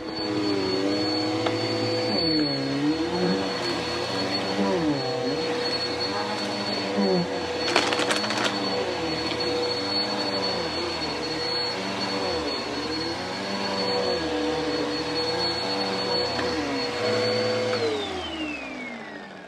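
Dirt Devil vacuum cleaner running on carpet: a steady high whine, with the lower part of its sound wavering up and down, and a brief crackle about eight seconds in. Near the end the motor winds down, falling in pitch and fading.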